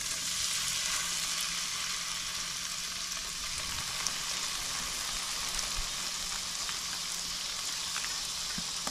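Crappie fillets frying in olive oil in a skillet: a steady sizzling hiss with scattered small pops, swelling slightly in the first second as more fillets are laid into the hot pan.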